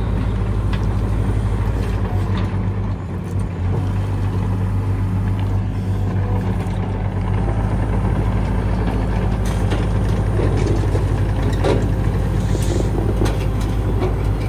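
Mini excavator's diesel engine running steadily while the machine tracks and turns on dirt, with a few clanks from its tracks and undercarriage in the second half.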